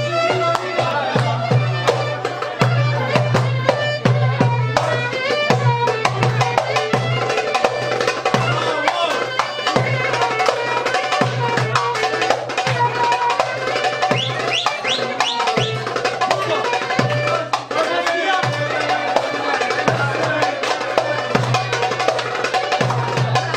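Fasıl ensemble playing Turkish traditional music: melodic instruments over steady hand-drum-style percussion.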